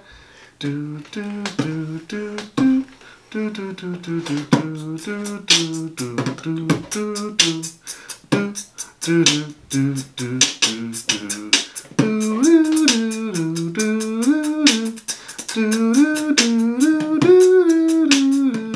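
Improvised vocal remix: beatboxing, rapid mouth clicks and pops, under a hummed, wordless melody. About twelve seconds in the hummed line gets louder and steadier.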